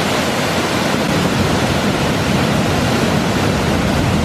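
Waterfall and fast-flowing river water rushing: a loud, steady roar of falling and churning water.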